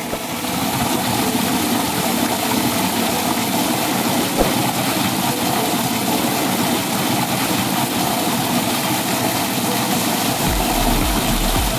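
Steady rush of a heavy jet of water pouring from a pump's discharge hose and splashing into a concrete channel. A low hum joins near the end.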